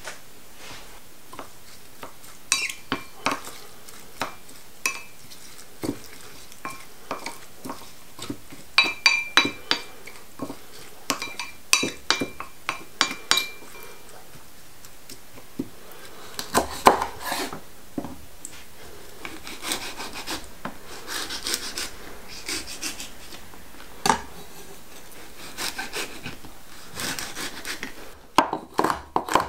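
A metal spoon clinks and taps against a ceramic bowl while seasonings are added, some taps leaving a short ring. Then a wooden spoon stirs and scrapes through the wet sauce in the bowl. Near the end a kitchen knife knocks on a wooden cutting board.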